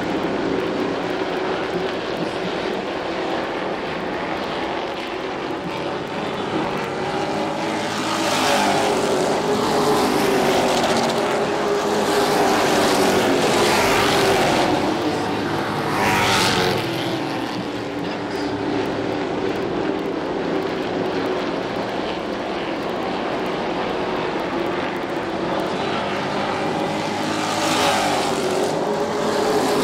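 Pro Truck race trucks running at racing speed around a paved oval: a continuous engine drone that swells and bends in pitch as trucks pass. It is loudest from about a third of the way in to just past halfway, with another close pass near the end.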